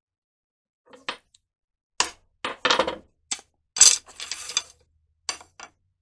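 Split bamboo cane strips knocking and clattering against each other and the wooden workbench as they are handled and sorted: a string of sharp knocks, with two longer rattles in the middle.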